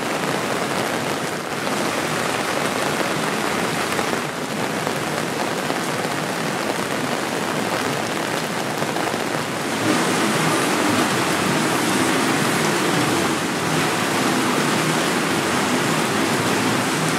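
Steady rain falling on wet paved streets and pavements, a dense even patter and splash, growing louder about ten seconds in.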